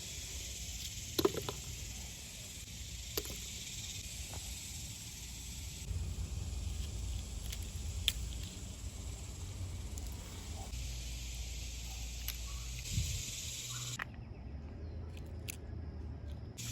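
Steady high-pitched hissing drone of cicadas, with a few light clicks and knocks over it. The drone drops out for about two seconds near the end.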